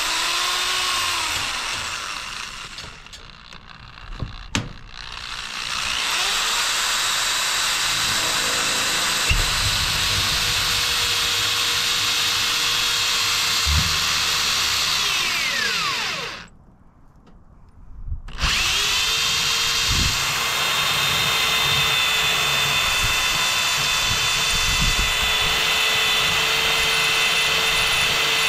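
Corded electric drill running: a short spin near the start, then a long steady run that winds down and stops about 16 seconds in, and after a pause of about two seconds a second steady run.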